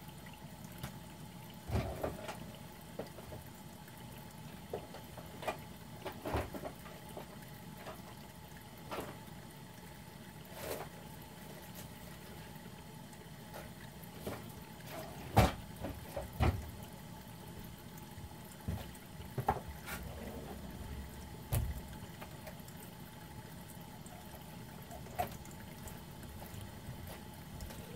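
Thin stream of tap water running steadily into a stainless steel sink. Scattered short knocks and clicks sound over it, the loudest two about halfway through.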